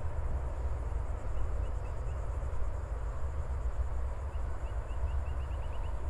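Steady low rumble outdoors, with a small bird chirping faintly: a few short notes, then near the end a quick run of chirps that speeds up.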